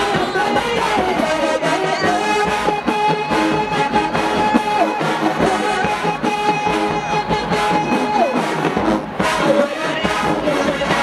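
Marching band brass playing loud, with drums: a high note held for several seconds, broken briefly, held again, then falling off about eight seconds in.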